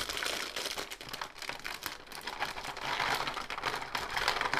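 Thin plastic bag crinkling as a batch of small clear plastic storage boxes is tipped out of it, with the little boxes clicking and clattering against each other. The crackling is steady and grows louder from about three seconds in.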